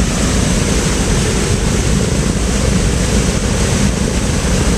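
Three Wright R-3350 Turbo-Compound 18-cylinder radial engines of a Douglas DC-7B running on the ground with their propellers turning. Number two has just fired and joined the other two. The sound is a loud, steady, heavy rumble.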